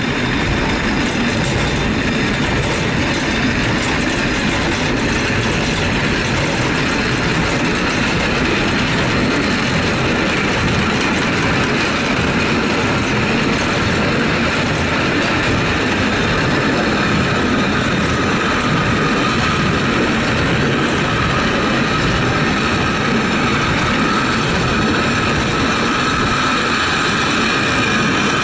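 Water-balanced funicular car running down its steep track: a steady rumble and rattle of the wheels on the rails. A faint high whine comes in during the second half.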